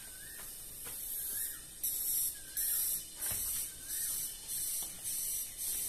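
Trigger spray bottle spraying sanitizer onto a boy's hands, about eight short hissing squirts in quick succession, roughly two a second, starting about two seconds in.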